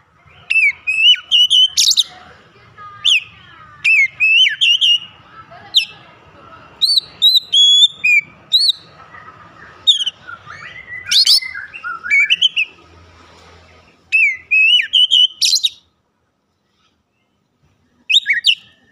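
Oriental magpie-robin in full song: quick, loud phrases of high whistles sliding up and down, mixed with short sharp notes, with a pause of about two seconds near the end.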